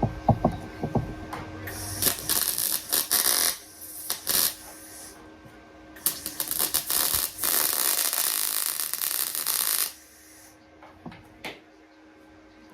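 Metalworking on a classic Mini's steel bodywork: a few sharp knocks, then two long bursts of harsh, crackling hiss, the second lasting about four seconds, then a few light clicks.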